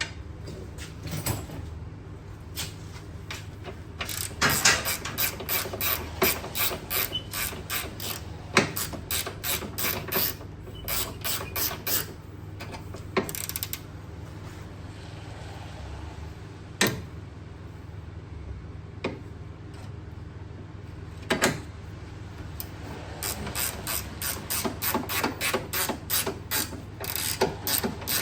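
Hand ratchet wrench clicking in runs of quick strokes while a suspension arm bolt is turned, with a few single clicks between the runs. A steady low hum lies beneath.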